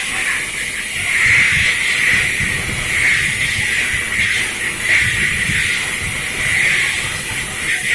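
A loud, steady hiss concentrated in a narrow upper-middle band, over an uneven low rumble, like machinery running or air or steam escaping.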